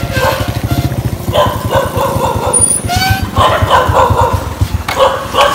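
A motorbike engine idling with a fast, even beat, cutting off just before the end. A dog barks in short bursts over it.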